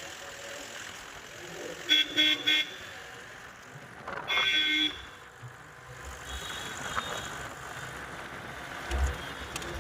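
Vehicle horn tooting: three quick toots about two seconds in, then one longer blast a couple of seconds later, over the low running noise of a vehicle.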